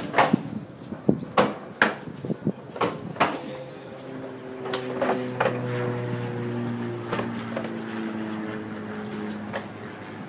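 Sharp clacks and knocks from a stacked column of plastic totes on a dolly being pushed through a doorway. Then the stack rolls along concrete with a steady hum whose pitch drifts slowly.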